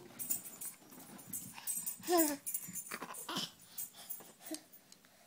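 A toddler's wordless vocal sounds: a falling squeal about two seconds in and a shorter one a little past three seconds, with breathy noises. These come amid clicks and knocks from handling close to the microphone.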